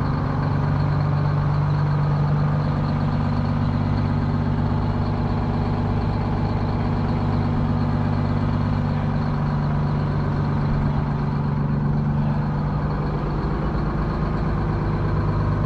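Diesel engines of semi-trucks idling close by, a steady low rumble that holds even throughout.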